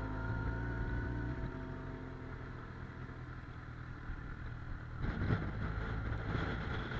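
Kawasaki Ninja 1000's inline-four engine running steadily. Wind noise buffets the microphone, growing in gusts about five seconds in.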